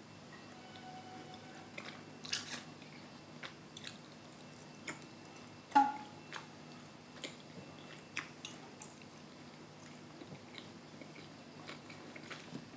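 Close-miked chewing of a mugwort songpyeon with a sesame filling: soft, scattered wet mouth clicks and smacks, with a brief "mm?" about six seconds in. The rice cake is one she finds dry and somewhat hard, hard work to chew.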